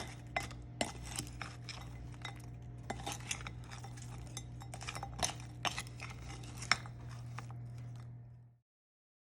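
Frozen okra being tossed and stirred in a bowl to coat it with melted butter and seasonings: repeated clinks and knocks of the utensil and the hard frozen pieces against the bowl, over a steady low hum. The sound stops abruptly near the end.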